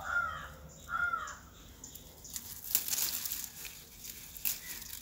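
A crow caws twice, two arched calls about a second apart at the start. These are followed by scattered crackling and snapping of leaves and stems as a goat kid browses the undergrowth.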